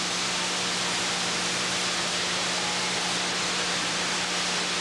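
Steady hiss with a low, even hum beneath it: the background noise of an old camcorder tape recording.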